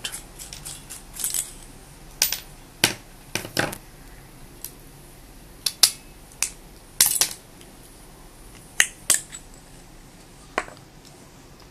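Small metal parts of a flashlight tail cap clicking and scraping against a tool as its retaining ring is unscrewed to free the clicky switch. The clicks come irregularly, a dozen or so, with a few short scrapes.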